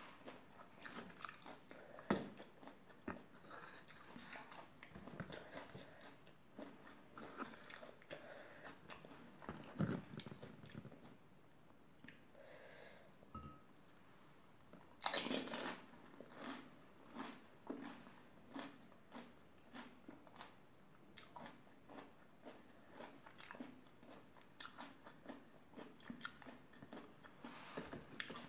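Crisp pani puri shells crunching as they are bitten and chewed close to the microphone. A loud crunch comes about halfway through as a whole puri is bitten, followed by chewing crackles about once a second.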